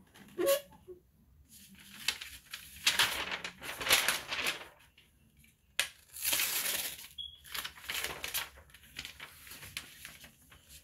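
Sheets of paper rustling and crinkling in several irregular bursts as sublimation transfer paper is peeled and pulled off a freshly pressed glass mirror.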